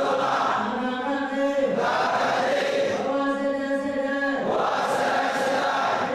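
A group of monks and lay worshippers chanting together, Buddhist devotional chanting in long held notes with short breaks between phrases.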